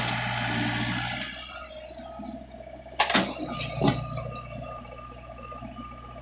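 Doosan mini excavator's engine running under hydraulic load with a whining hydraulic tone, while a bucket of soil pours into the steel bed of a dump truck in the first second or so. Two sharp metallic knocks come about three and four seconds in as the machine swings back to dig, then the engine and a steady high hydraulic whine go on.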